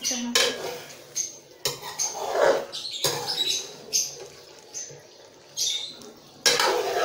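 Metal spoon scraping and knocking against a metal karahi as chicken pieces are stirred with ginger-garlic paste, in irregular strokes with a light metallic ring.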